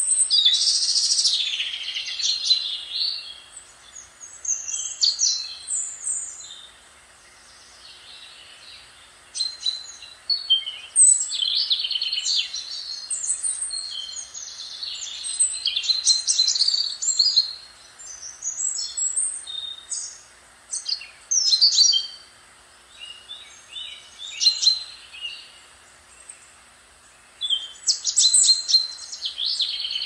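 Small songbirds chirping and singing in busy bursts of quick, high notes, with short pauses between bursts, over a faint, even hiss.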